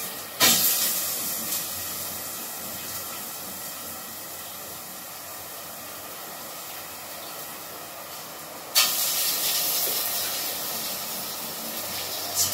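Marinated chicken pieces dropped into hot sunflower oil in a steel pot, sizzling. A loud burst of sizzle starts about half a second in and slowly dies down, a second burst comes about two-thirds of the way through as more pieces go in, and a few smaller spurts follow near the end.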